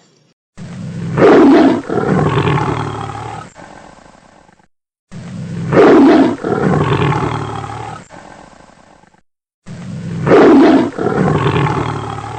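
A big cat roaring: the same roar three times, each a loud opening call followed by a fading tail lasting about four seconds.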